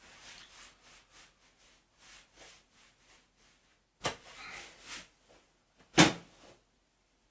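Clothes being washed by hand in a bucket of water: soft sloshing and wet cloth sounds, a louder wash of noise about four seconds in, and a short sharp sound, the loudest, about six seconds in, then quiet.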